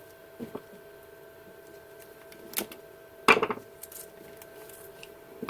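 Light clicks of a cable and plastic ties being handled, then a sharp snap a little over three seconds in: a zip tie being cut to free the cable. A faint steady hum sits underneath.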